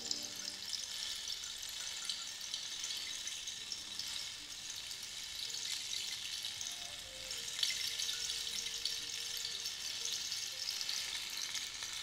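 Cactus rainstick tilted slowly, its pebbles and seeds trickling down over the dried cactus spines hammered inside: a steady rushing patter, a water-like sound.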